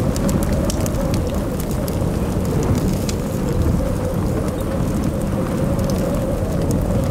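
Crackling fire over a heavy low rumble, with a steady, slightly wavering drone held underneath.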